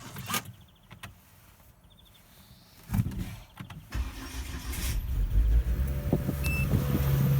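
A car's 2.5-litre engine, with its stock exhaust, being started from cold. The starter cranks about three seconds in, the engine catches about a second later, and it settles into a steady, fast cold idle.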